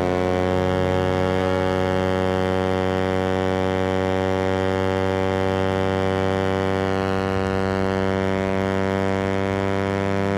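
Suzuki GSX-R150's single-cylinder four-stroke engine held at steady high revs at top speed, one constant pitched drone with wind noise at speed.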